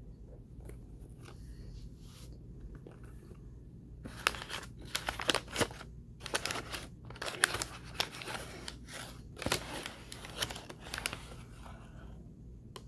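Irregular crackling and crunching of Argo gloss laundry starch and its paper liner as a hand digs into the box, starting about four seconds in and dying away near the end.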